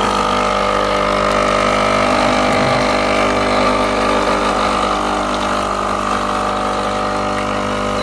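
Sunbeam Compact Barista espresso machine's pump running a shot of water through the group head to prime the machine, a steady buzzing hum that holds level throughout.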